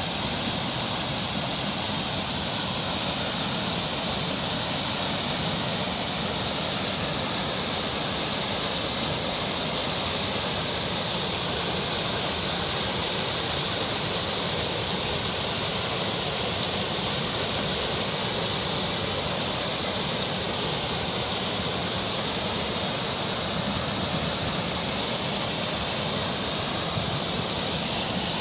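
Water of a small river flowing steadily, an even, unbroken hiss.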